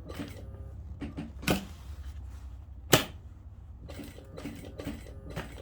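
Domestic sewing machine stitching, with two sharp knocks, the louder one about three seconds in.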